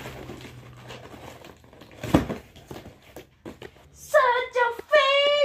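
Cardboard box flaps and packaging handled and pulled open, with light rustles and clicks and one sharp knock about two seconds in. Near the end a child starts singing held notes.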